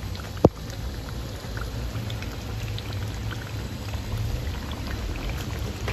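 Chicken kofta curry simmering in a pot, bubbling with scattered small pops over a steady low rumble. A sharp click comes about half a second in.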